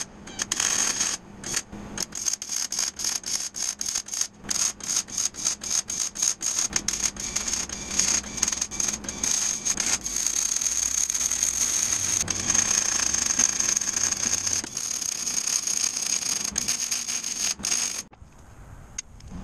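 Millermatic 180 Auto-Set MIG welder arc crackling as steel unistrut is welded: quick stop-start bursts for the first several seconds, then a longer steady bead from about eight seconds in that cuts off about a second before the end.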